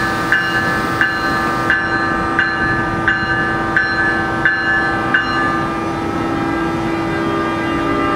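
Bell of an NJ Transit ALP-46 electric locomotive ringing in even strokes about every 0.7 s, eight times, then stopping about five seconds in. Under it runs the locomotive's steady electric hum as it starts to pull away.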